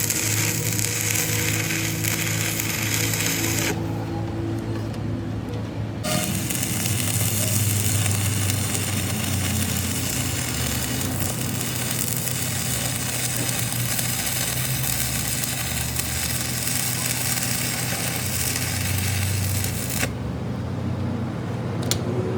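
Steady workshop machine noise: a low hum with a dense hiss over it. The hiss drops away for a couple of seconds about four seconds in and again near the end.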